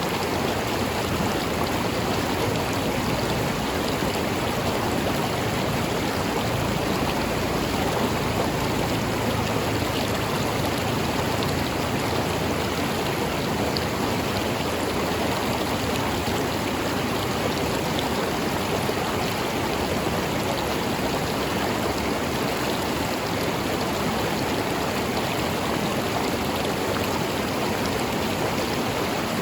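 River water flowing over rocks, a steady rushing and burbling that does not change.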